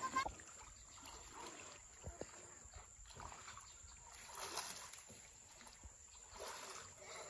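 Quiet water sloshing and splashing from people wading through a pond and working a pole-mounted hand net, swelling about four and a half seconds in and again near the end.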